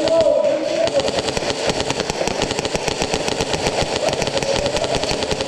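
Airsoft electric guns firing on full auto: a fast, continuous rattle of shots, many to the second.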